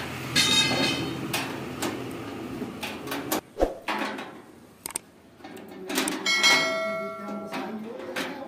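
Screwdriver work on the sheet-metal hopper of a small corn sheller: irregular clicks, scrapes and knocks of metal on metal as the hopper is screwed into place.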